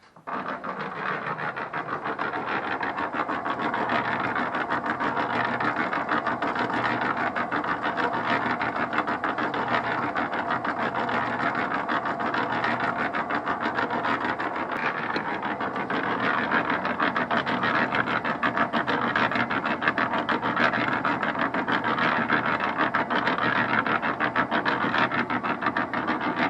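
ALUMIS Maze Taro AMZ-30Y electric concrete mixer running, its drum turning with a dense, steady rasping rattle of the cement and sand mix tumbling inside. It starts abruptly right at the beginning and keeps going without a break.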